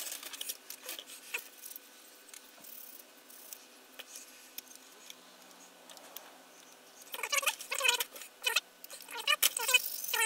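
Light handling clicks of plastic model parts, then from about seven seconds a sanding stick rubbing back and forth along the plastic fuselage seam of a 1:72 model kit, in short strokes that carry a pitched tone rising and falling.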